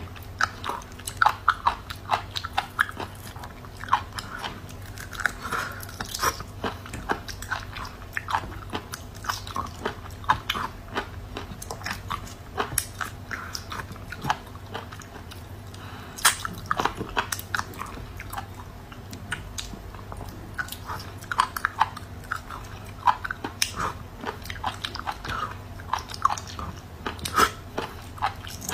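Close-miked eating of small raw sea snails picked out by hand: many short wet mouth clicks, bites and chewing in an irregular run, over a steady low hum.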